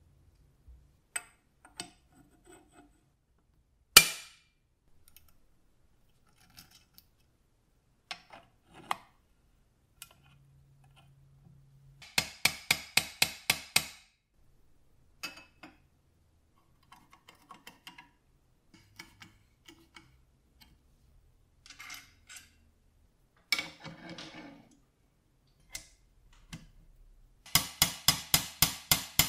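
Metal parts of an antique crank-operated cheese slicer being reassembled by hand: scattered small clicks and taps, and one sharp knock about four seconds in. Two runs of rapid, evenly spaced clicking, about seven a second, come near the middle and at the end, the first as the crank handle is turned against its ball-detent ring.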